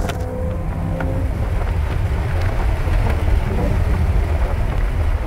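Inside the cabin of a modified VE Commodore SS wagon, the V8 runs with a steady low rumble and wind noise, the high-revving sound having cut away right at the start.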